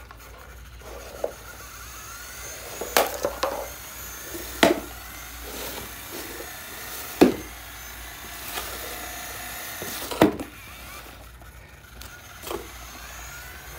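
Small electric motors of a basswood robot kit whirring as its spinning wooden blade and wheels run, with a series of sharp knocks as the blade strikes a box, the loudest about 7 and 10 seconds in.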